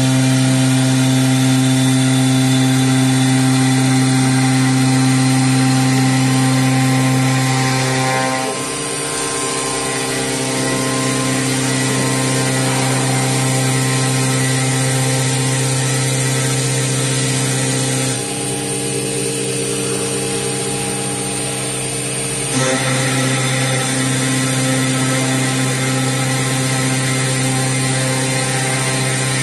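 CNC stone-machining spindle grinding a stone countertop slab under a water spray: a steady mechanical hum and whine. The pitch and loudness shift as the load changes, once about eight seconds in and again from about eighteen to twenty-two seconds.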